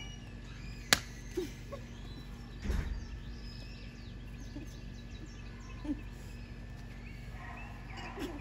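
Flour tortilla slaps during a slap challenge: one sharp smack about a second in and a softer one near the end as a tortilla strikes a face. Birds chirp in the background over a low steady hum.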